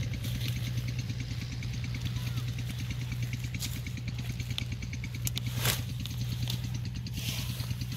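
An engine running steadily with a low drone and a fast, even throb. About five and a half seconds in there is a brief rustle and snap of leafy plants as turnips are pulled up by hand.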